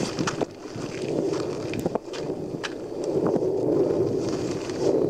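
Mount Etna erupting in a lava fountain: a continuous rumbling roar with a scatter of sharp cracks from explosions, growing a little louder in the second half.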